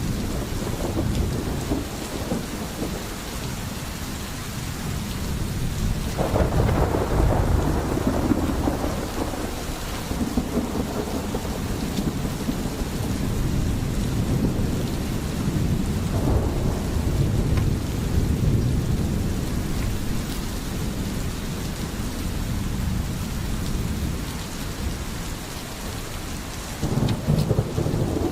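Steady heavy rain with rolling thunder, the low rumble swelling about six seconds in, again midway and near the end.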